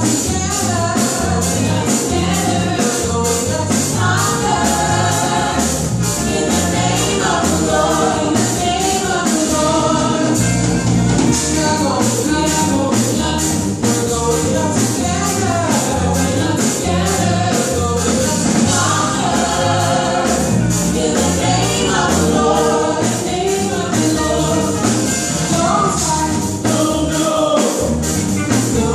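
Live gospel worship music: a woman's lead vocal with a small backing choir, over a band playing a steady beat with bass.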